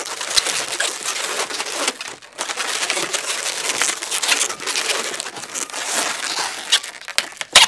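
Latex twisting balloons rubbing and squeaking against each other as they are twisted and locked into pinch twists: a dense, crinkly scratching with short squeaks, and a sharp snap near the end.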